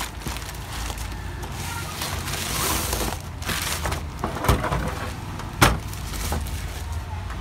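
Plastic film being pulled off a metal DVR case, crinkling and rustling, with a few sharp knocks, the loudest about five and a half seconds in.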